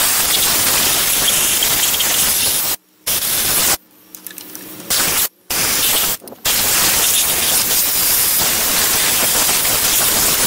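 Compressed-air blow gun hissing in long blasts, stopping briefly four times, as it blows dirt out of the spark plug wells before the plugs are removed.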